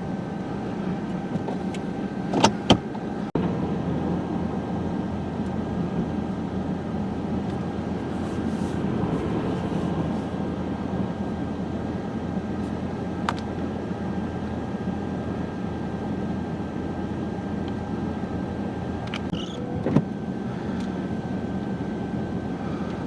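Steady running noise of a car with a low hum and a thin, high steady tone. A few sharp clicks come about two and a half seconds in and once more near the end.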